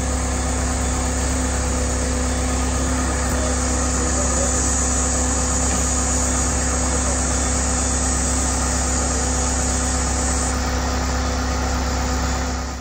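Engine of a truck-mounted aerial work platform running steadily, driving the boom's hydraulics as the basket is raised.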